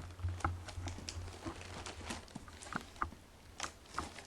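Irregular small clicks and scratches of a knife working at packaging tape on a cardboard shipping box, over a steady low hum.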